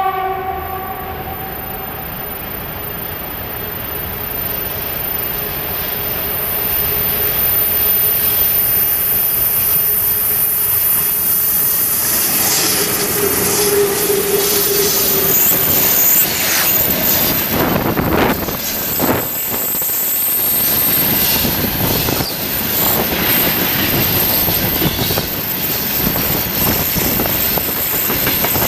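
VL11.8 electric locomotives hauling a freight train past at close range. A horn note ends about a second in. The locomotives' running noise swells as they approach and pass, then the tank cars clatter by, their wheels knocking over the rail joints.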